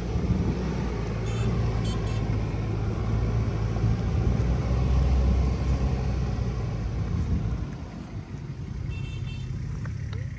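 Toyota Land Cruiser Prado engine running under load as the SUV climbs a dirt slope, a steady low drone that fades about eight seconds in as it moves off over the crest.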